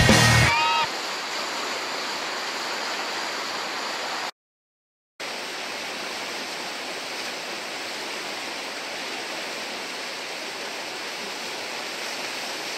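Steady rushing of whitewater churning through a river hole. Background music cuts off within the first second, and the water sound drops out completely for just under a second a little after four seconds in.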